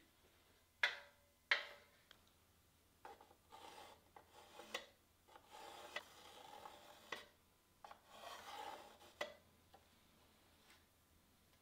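Two sharp clicks about a second in, then soft scraping and rubbing with a few light taps, as a thin bent wooden strip is pressed against a wooden block and a pencil is drawn along it to mark a curve.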